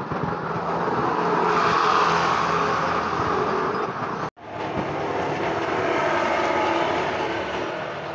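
Loud passing-traffic noise: a vehicle's rumble swells and fades, cuts off abruptly a little past halfway, then a second swell rises and fades.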